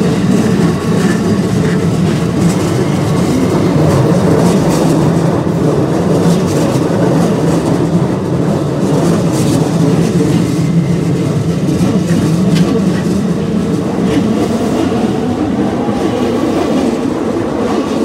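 Keikyu Line electric train passing at close range over the level crossing: a steady rolling rumble of wheels on rail, with scattered sharp clacks as the wheels cross rail joints and the crossing.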